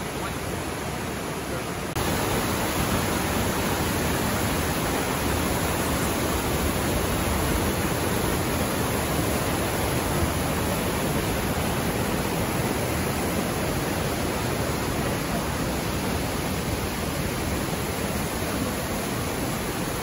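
Steady rushing of a mountain stream tumbling over boulders below a waterfall, a constant even wash of water noise that steps up in loudness about two seconds in.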